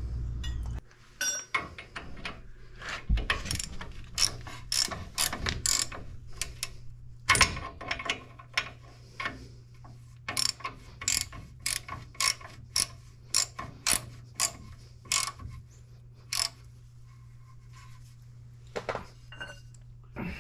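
Hand ratchet wrench clicking in repeated strokes, about two a second, as it turns a fastener on a truck's front suspension. The strokes stop about three quarters of the way through, and only a few scattered clicks follow. A steady low hum runs underneath.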